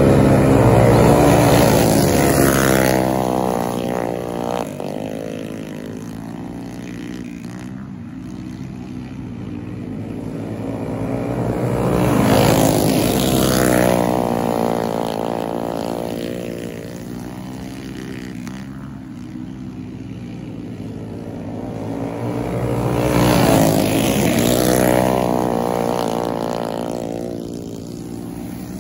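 Small go-kart engines buzzing as a pack of karts laps a dirt oval. The sound swells three times, about every eleven seconds, as the karts come by, the engine pitch rising and falling with each pass.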